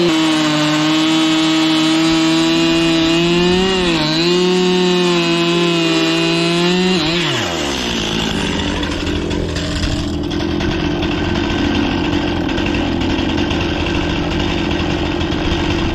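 Stihl MS261C two-stroke chainsaw running at full throttle through a log, its note sagging briefly under load about four seconds in. About seven seconds in the throttle is released and the engine falls to idle for the rest. The chain, filed unevenly, is pulling the cut off at an angle to the right.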